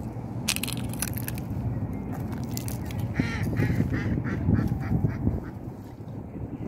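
Ring-billed gull calling a series of about seven short notes, roughly three a second, over a steady low background rumble.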